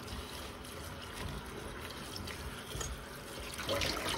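Water trickling and splashing, growing louder near the end.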